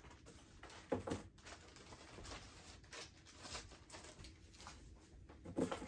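Faint rustling of a thin plastic bag and light clicks as a small plastic toy rifle is unwrapped and handled, with two brief louder handling sounds, about a second in and near the end.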